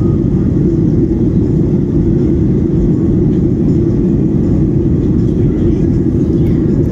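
Steady cabin noise inside an airliner in flight: a loud, even low drone of the jet engines and airflow.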